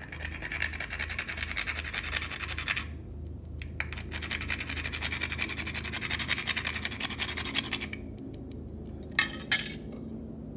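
Whole nutmeg grated on a small metal hand grater: a run of quick rasping strokes, a pause of about a second, then a longer run. Two sharp knocks near the end.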